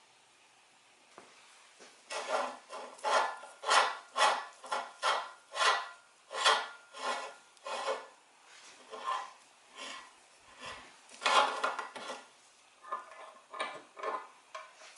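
Rhythmic scraping or rubbing strokes, about two a second, starting about two seconds in and turning weaker and shorter near the end.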